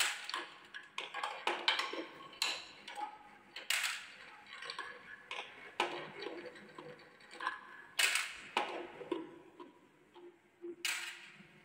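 Marbles rolling and clacking through a wooden marble run: a low rolling rumble broken by irregular sharp knocks as they drop through a wooden funnel bowl and run down a zigzag slope. The loudest clacks come about 2.5, 4, 8 and 11 seconds in.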